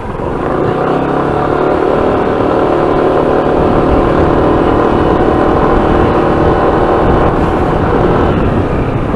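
Yamaha NMAX 155 scooter's single-cylinder engine running steadily on the move, mixed with heavy wind rush on the microphone.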